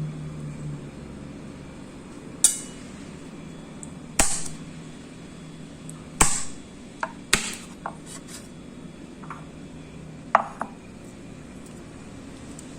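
Kitchen utensils and glassware knocking and clinking: about five sharp knocks, a second or two apart, some with a short ring, and a few lighter ticks in between.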